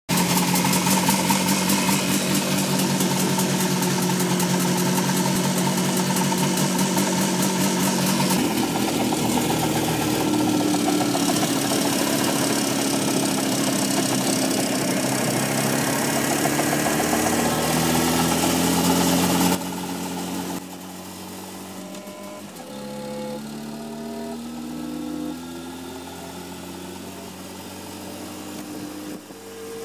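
Buzzy electronic computer-synthesized music: a steady droning buzz, which changes suddenly about eight seconds in to slowly gliding tones, then from about twenty seconds a quieter run of separate held notes at stepped pitches.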